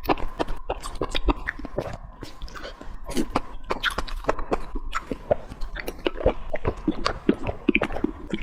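A person chewing food close to the microphone, with many short, irregular mouth clicks.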